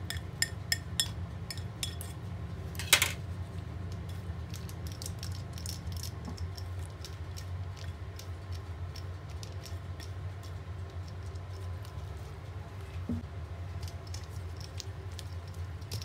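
Glass bowl and silicone spatula clinking and tapping against a stainless steel mixing bowl as wet carrot-cake mixture is scraped out into it and the thick batter is stirred: a run of small clicks with one sharper clack about three seconds in. A steady low hum runs underneath.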